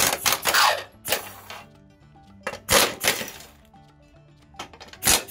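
Impact wrench hammering in short bursts, about four of them, as it undoes the 19 mm bolts holding a cover plate to a car's front subframe.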